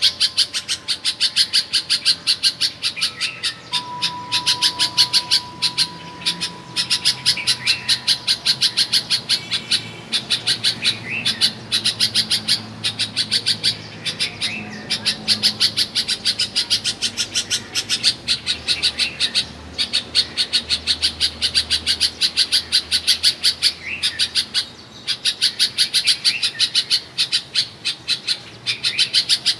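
A bulbul chirping rapidly and without pause, about three sharp notes a second, with a short warbled phrase every few seconds.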